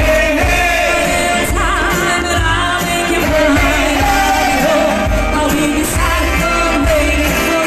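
Live band music with a singer holding a wavering, vibrato-laden vocal line over sustained instrument chords and a regular low beat.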